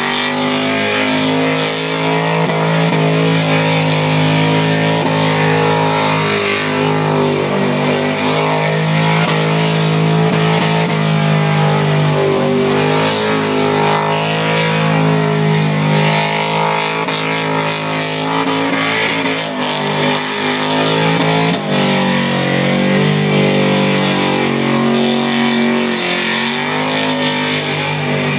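A car's engine held at high revs during a burnout, its pitch wavering up and down, over a steady hiss of spinning tyres.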